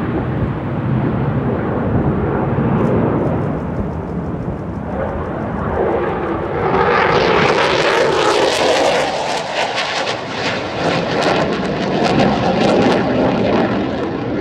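Jet roar of US Air Force Thunderbirds F-16 fighter jets flying over. It is a low rumble at first, then from about halfway it becomes a louder, harsher, crackling roar as a jet passes overhead, and it stays that way to the end.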